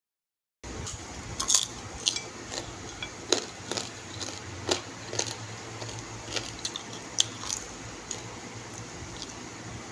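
Close-up eating sounds of a whole chicken being picked apart and eaten by hand: scattered sharp clicks and smacks, thickest in the first several seconds and sparser towards the end, over a low steady hum. The sound cuts in after about half a second of silence.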